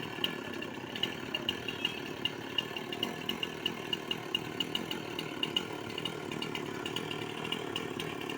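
Chainsaw running steadily during tree cutting, with short sharp ticks recurring several times a second over the drone.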